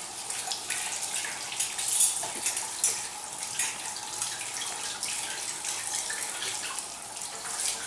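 Water running from a tap into a sink, with light clinks and knocks scattered through it.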